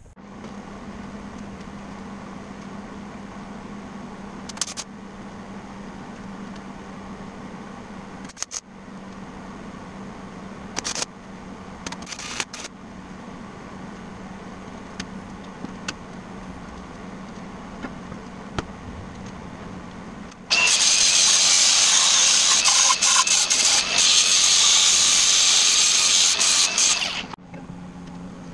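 MIG welding on a steel winch mount: a few short crackling bursts, then a continuous weld of about seven seconds with a loud sizzling crackle that cuts off abruptly, over a steady low hum.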